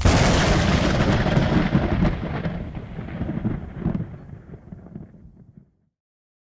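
Thunderclap: a sudden sharp crack, then a rolling rumble that fades away over about five seconds.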